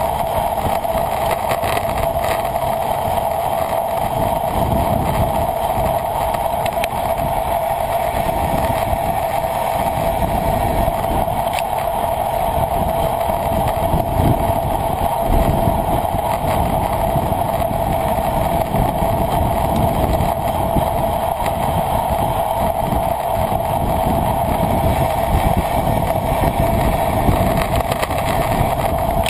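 Steady rush of wind and road noise on a bicycle-mounted camera during a race, with a constant mid-pitched hum over low rumbling.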